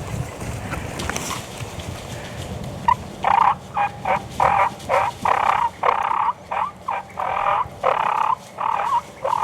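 Wild turkey yelping: a quick run of about a dozen short, loud yelps starting about three seconds in, some ending with a drop in pitch.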